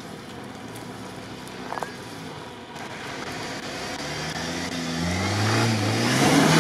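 Jeep Wrangler Rubicon's engine revving up under load as it charges up a steep sandy slope. The engine is faint at first, then rises in pitch and grows louder over the last few seconds, with the hiss of spinning tyres throwing sand at the peak.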